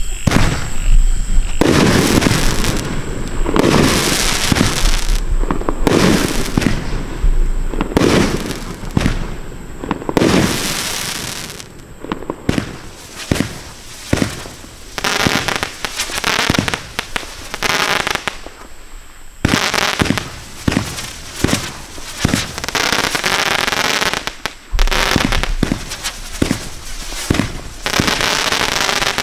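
Winda Spider Bot 30-shot consumer firework cake firing: shot after shot lifting off and bursting in the air, with a run of quick sharp cracks about halfway through.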